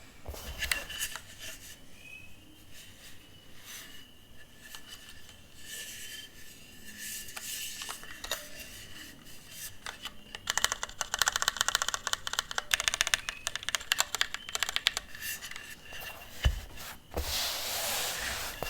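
Keys of a Daisy 40 mechanical keyboard with Gateron Milky Yellow switches and an aluminium and carbon-fibre case clacking. Scattered single presses give way to a fast run of typing about halfway through. Near the end comes a short rubbing noise.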